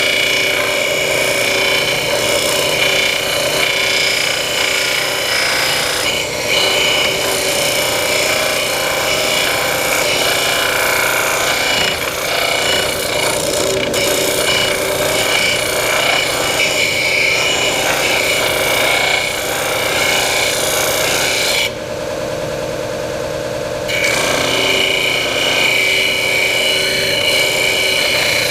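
Belt and disc sander running, its motor humming steadily while a wooden workpiece is pressed against the spinning sanding disc, which gives a continuous rasping of abrasive on wood. The rasping stops for about two seconds about three-quarters of the way through, with the motor still running, then resumes.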